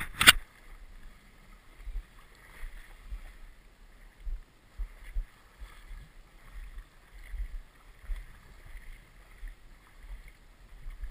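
Water lapping and low, uneven buffeting on the camera's microphone by a river, after a brief loud noise right at the start.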